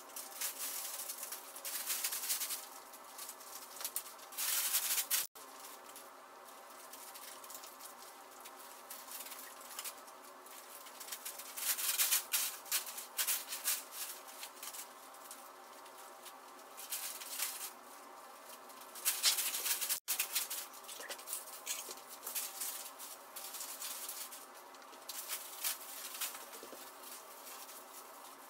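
Plastic sheeting crinkling and rustling as it is handled and wrapped around a body, in irregular louder bursts over a softer steady rustle.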